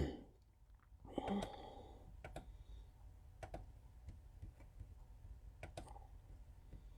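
Faint, irregularly spaced clicks of a computer mouse and keyboard, about a dozen over several seconds.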